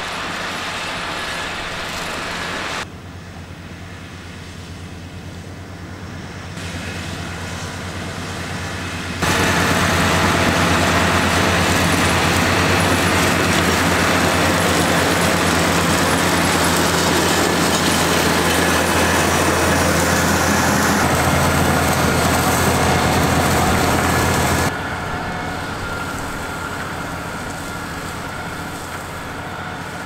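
Valtra T214 tractor's six-cylinder diesel engine running steadily under load while ploughing, with the front flail mower spinning through the cover crop. Loudest through the middle stretch.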